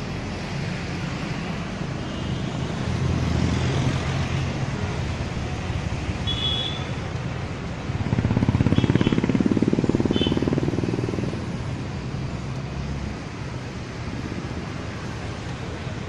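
Road traffic running steadily, with a motor vehicle passing close by about eight seconds in, over a steady hiss of water from a fountain's jets.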